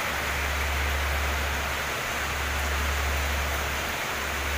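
Very heavy rain pouring down: a steady, dense hiss of falling rain, with a steady low rumble underneath.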